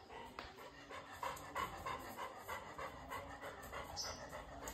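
Labrador retriever panting in quick, even breaths, about three a second.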